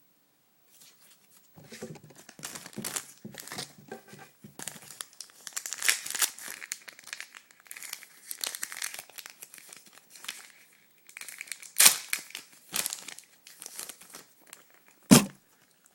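Foil booster-pack wrapper crinkling and tearing as a card pack is opened and handled, ending with one sharp knock about a second before the end.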